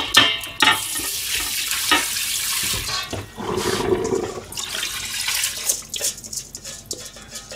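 Kitchen tap running hard into a stainless steel sink while dishes are rinsed, with water splashing and pouring through a stainless bowl into a rice cooker's inner pot. A few sharp knocks of metal on metal, and the running water eases in the last few seconds.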